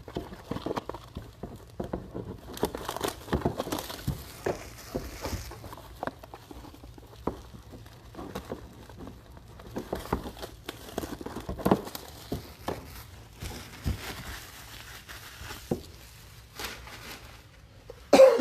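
Plastic shrink-wrap being ripped and crumpled off trading-card boxes: irregular crinkling and tearing, with scattered handling clicks. A short louder sound comes right at the end.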